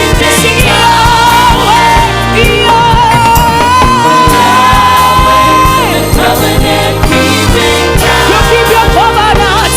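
Live gospel worship song: voices singing over a band with a steady beat, with one long held note in the middle.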